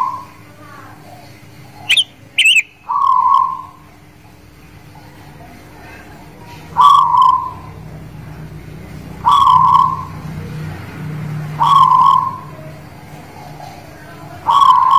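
Zebra dove (perkutut) of the local guling Muria type, singing from its cage: short, mellow coos repeated every two to three seconds, five in all. About two seconds in, two brief, sharp, high whistles cut in.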